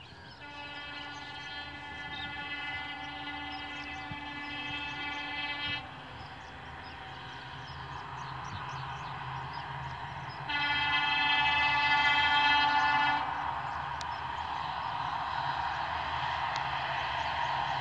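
Locomotive horn of an approaching train sounded in two long blasts: the first about five seconds long, the second, louder and about three seconds long, some ten seconds in. Under it runs a low steady rumble of the train that grows louder as it comes closer.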